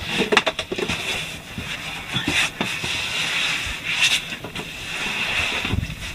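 Scuffs and knocks of a caver climbing down among rocks into a cave entrance, over a steady hiss. A cluster of knocks comes in the first second and another about four seconds in.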